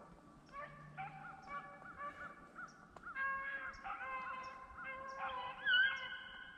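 A pack of beagles baying on a rabbit's trail, several dogs giving mouth at once with long drawn-out bawls and quick repeated chop barks, louder near the end.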